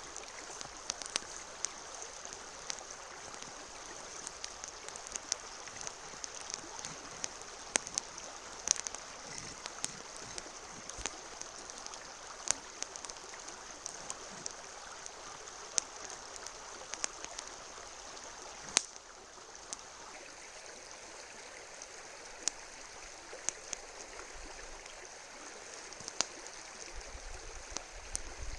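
Wood campfire crackling with sharp, irregular pops as it burns down toward cooking coals, over the steady rush of a river.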